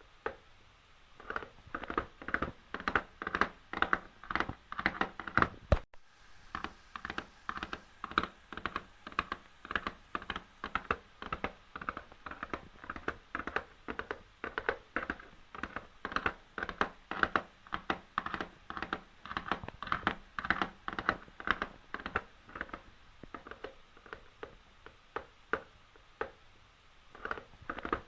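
Hoofbeats of a running horse: a rapid, rhythmic clatter of hooves, several strikes a second, with a brief dropout about six seconds in.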